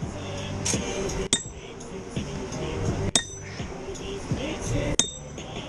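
Spike maul hand-driving a steel railroad spike: three sharp metal-on-metal blows a little under two seconds apart, each with a brief high ring.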